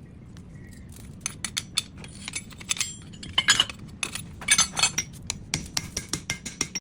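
Irregular light metal-on-metal clinks and taps from wrought iron being worked, a few ringing briefly, thickest in the middle and latter part, over a steady low hum.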